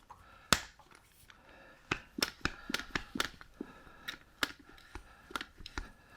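Sharp, irregular clicks and clacks of a hand grease gun and its locking coupler being worked and handled at a caravan overrun brake's grease nipple, the loudest click about half a second in.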